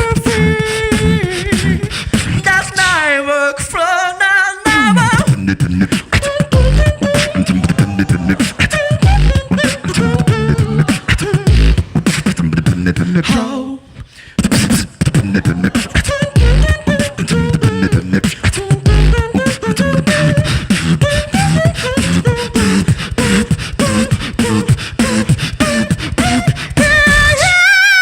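Beatbox tag team performing: vocal kick drums and snares keep a steady beat while sung and hummed melody lines run over it. The beat breaks off briefly about halfway through, and a high wavering tone comes in near the end.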